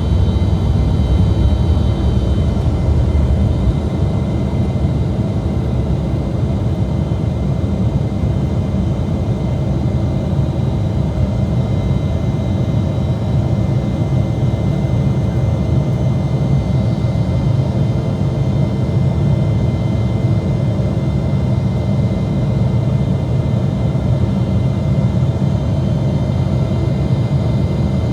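Embraer E175's twin CF34 turbofan engines at takeoff power, heard inside the cabin: a loud, steady low rumble with faint high whining tones over it. The deepest part of the rumble eases a few seconds in.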